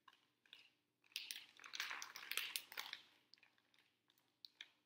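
Paper candy packets crinkling and rustling as they are handled and opened, a dense run of crackles about a second in that lasts a couple of seconds, with a few single clicks before and after.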